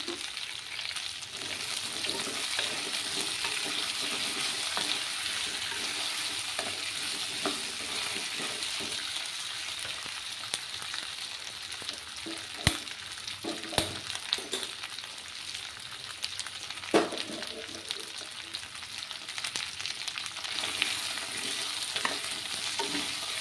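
Pieces of ghati kochu (taro corm) sizzling steadily as they fry in mustard oil in a non-stick wok, with a few sharp knocks about halfway through and again a few seconds later.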